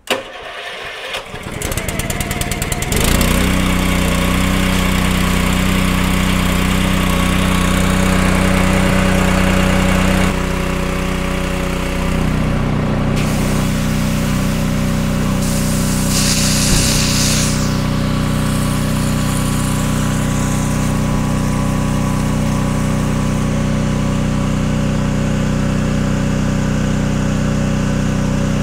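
Small petrol engine driving a Comet P40 diaphragm pump starts up, building unevenly over the first three seconds, then runs steadily as the pump puts solution through. The engine note changes about ten seconds in.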